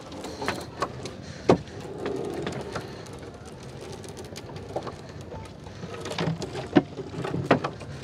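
Scattered knocks and clatter as a fishing net is hauled up into a small boat, the sharpest knock about one and a half seconds in.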